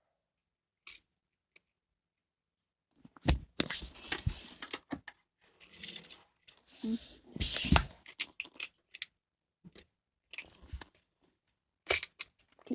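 Irregular bursts of clicking, scraping and rustling: hands working small plastic model railway stock on the layout close to the microphone.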